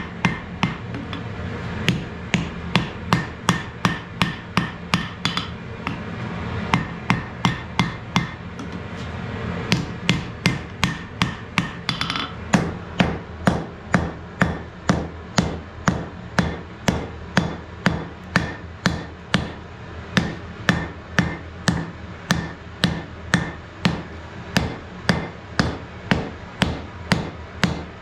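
Blacksmith's hand hammer striking a red-hot wrought-iron axe head on an anvil as the blade is forged to shape. The blows come in a steady rhythm of about two to three a second, with a few short pauses in the first ten seconds.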